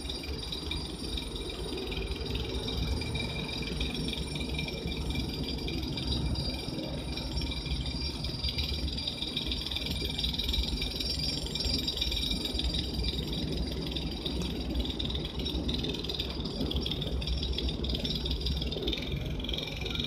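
Alstom Citadis 302 tram moving slowly along its track: a steady low rumble with a thin, steady high whine over it.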